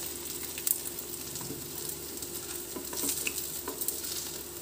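Chana (black chickpea) kebab patties sizzling steadily as they shallow-fry in oil in a nonstick frying pan. A few light clicks and scrapes come from a spatula as the patties are turned over.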